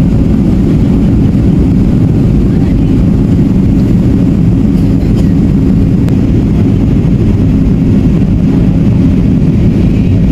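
Steady low roar inside the cabin of a Boeing 737-800 in flight: its CFM56 turbofan engines and the rush of air past the fuselage, heard from a seat by the wing during the descent to land.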